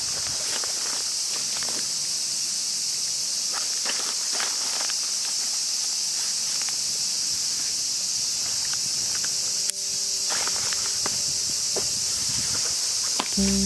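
A steady, high-pitched drone of cicadas, with the rustling and light clicks of a fabric backpack being handled and packed.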